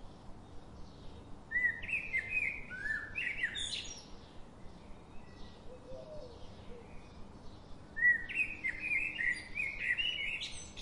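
A songbird singing two quick warbling phrases of rapidly rising and falling notes, about a second and a half in and again about eight seconds in. Fainter short chirps repeat a few times a second underneath.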